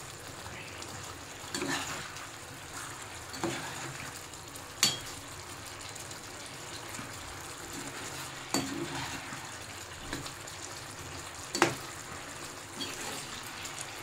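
Cabbage Manchurian balls simmering in their sauce in a frying pan, a steady cooking noise, while a slotted spoon stirs them and knocks against the pan now and then, most sharply about five seconds in and near twelve seconds.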